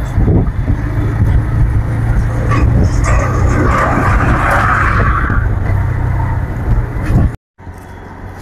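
Motorcycle engine running at road speed with wind rumbling on the microphone. About three seconds in, a louder rush lasts for a couple of seconds as the bike passes a truck. Near the end the sound cuts out briefly and returns as a quieter, steady drone.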